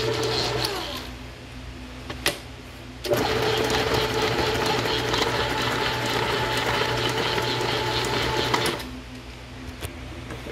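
Hobart N50 gear-driven stand mixer running, its flat beater churning stiff cookie dough in the steel bowl: a steady mechanical whir. The sound drops to a quieter hum about a second in, with a sharp click, then comes back loud from about three seconds until near the end, when it drops again.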